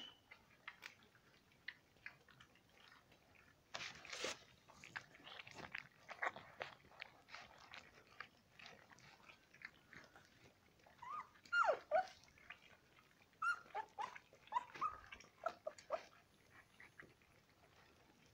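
Four-week-old Alaskan malamute puppies eating soft food: a busy run of wet lapping and smacking clicks, with several short, high whimpers and squeaks from the pups in the second half.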